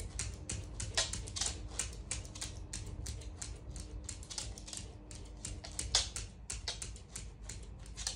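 A small dog's claws tapping and clicking against a mirror and the floor as it paws at its reflection: rapid, irregular clicks, several a second, with a couple of sharper knocks.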